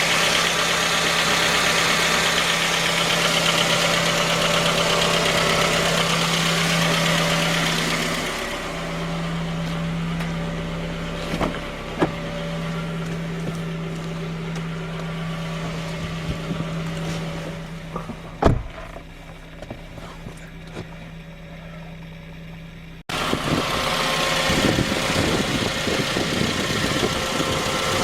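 Suzuki J20A four-cylinder engine running cold with a knock, which turned out to come from a scored crankshaft journal on cylinder 3. The engine note is steady but gets quieter partway through, with a few sharp clicks in the middle, and is louder again after an abrupt cut near the end.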